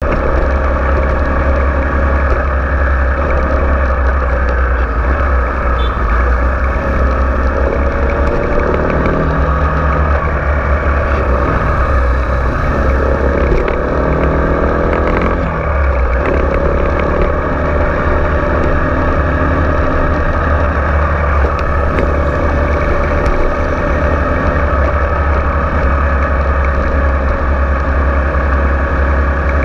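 Kawasaki Ninja 250 FI's parallel-twin engine running under way, its revs climbing and dropping a few times as the bike rides through traffic, over a steady low rumble.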